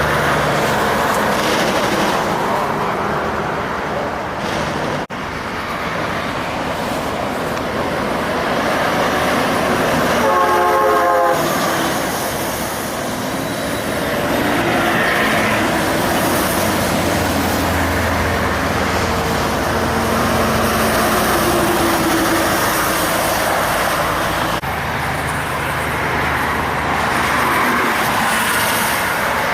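Heavy trucks passing, with diesel engines running and tyre and road noise. An air horn sounds once for about a second and a half, around ten seconds in.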